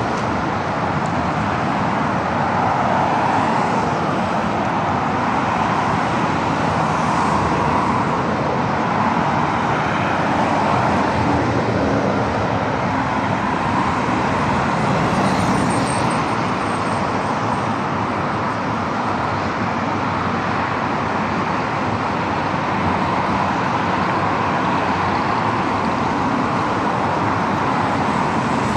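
Steady road traffic on a busy city boulevard: a continuous wash of cars and other vehicles driving past.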